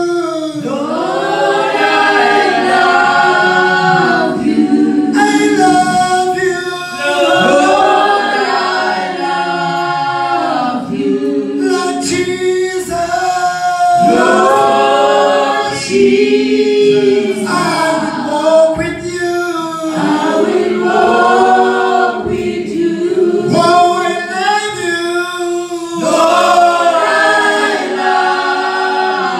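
Church choir singing a gospel song, with men leading on handheld microphones.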